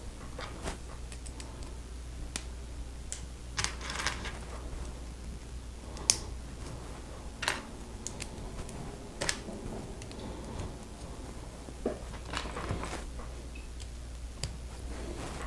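LEGO plastic bricks being handled and pressed together: scattered small plastic clicks and taps, the sharpest about six seconds in.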